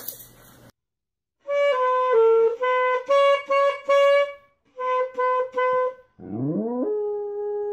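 Saxophone playing two short phrases of quick separate notes. About six seconds in, a golden retriever begins howling along, its howl sliding up in pitch and then holding one long steady note.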